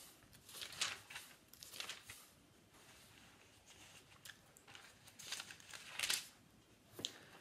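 Pages of a Bible being turned, several soft paper rustles with a sharper tick near the end.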